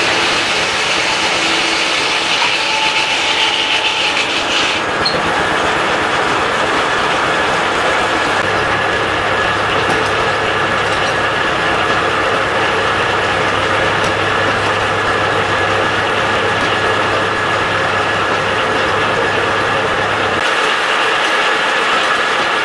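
Antique circular sawmill running steadily, its large saw blade spinning free between cuts while the log is set on the carriage.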